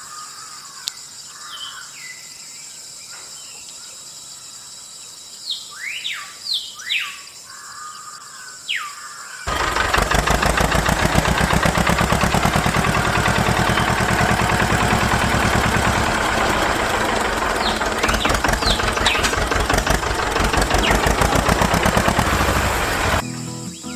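Bird calls, several short chirps falling in pitch, over a faint outdoor hiss. About nine seconds in, a loud machine noise starts suddenly: a fast, even rattle that runs steadily and cuts off just before the end.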